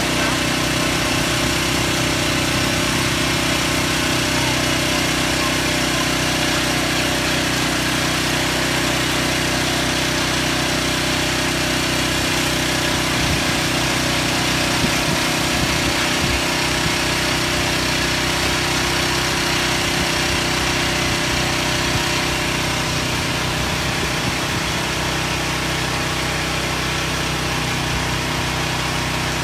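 Typhoon wind and heavy rain: an even, steady rush of rain and gusting wind, with a steady low hum underneath.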